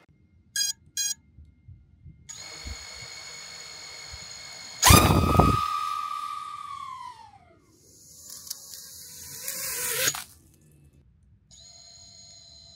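FPV quadcopter's brushless motors (MEPS SZ2408 2500KV): two short beeps, then the motors spinning at armed idle with a steady high whine. About five seconds in comes a loud full-throttle punch straight up, its pitch falling steadily as the drone climbs away. Later a rising whine cuts off abruptly, and near the end the motors whine steadily at idle again.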